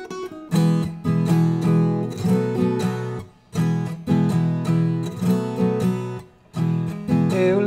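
Viola caipira, the Brazilian ten-string folk guitar, playing the instrumental interlude of a cururu. Rhythmic strummed chords come in phrases of about three seconds, each followed by a brief pause.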